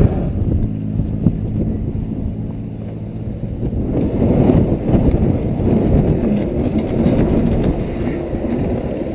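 Wind buffeting an open camera microphone at the water's edge, a loud, rough low rumble.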